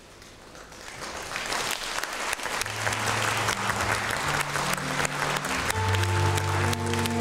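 Audience and performers applauding, the clapping swelling from about a second in. Music enters under it with low held notes at about three seconds, and more notes join near the end.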